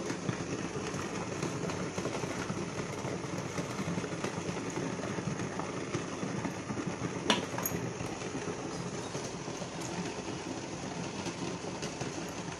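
Steady running hum of an induction cooktop heating an idli steamer pot of water toward the boil, with one short sharp tap about seven seconds in.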